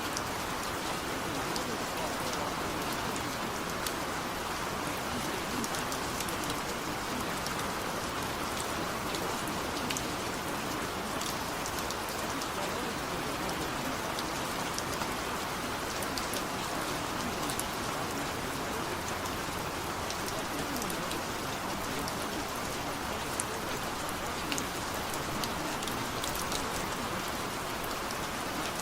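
Steady rain falling, with scattered sharp drop sounds through it.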